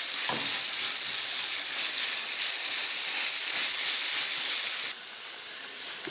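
Food sizzling steadily in a frying pan, with the sizzle dropping abruptly to a quieter level about five seconds in.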